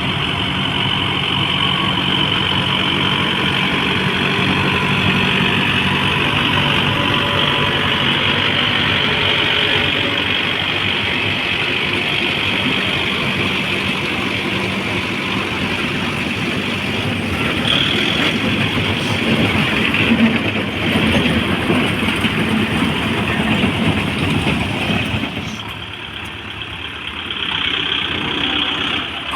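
Tractor engine running steadily while working soil, briefly quieter a few seconds before the end.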